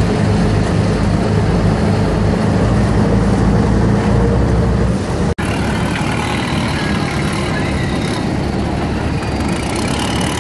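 Boat engine running with a steady deep hum over the rush of river water and wind. About halfway through, the sound drops out for an instant. After that the deep hum is much fainter and water and wind noise dominate.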